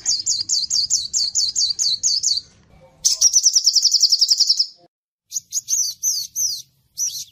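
Mixed songbird song of canary, cinereous tit and sunbird. A run of high, repeated down-slurred notes about five a second comes first. After a short pause a fast high trill starts about three seconds in. Short separate slurred notes follow near the end.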